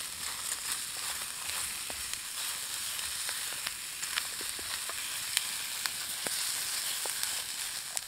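Chopped peppers and onions with a lump of butter sizzling steadily in a metal frying pan over a campfire, with scattered sharp pops and crackles.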